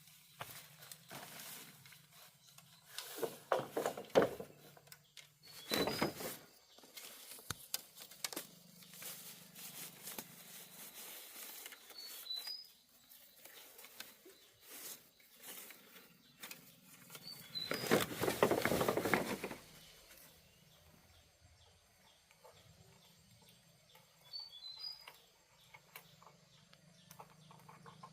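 A small bird chirping a few short calls, spread out, over bouts of rustling and handling noise. The loudest rustle comes about two-thirds of the way in.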